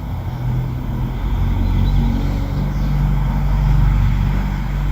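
BMW E60/E61 diesel engine running steadily, growing louder over the first couple of seconds.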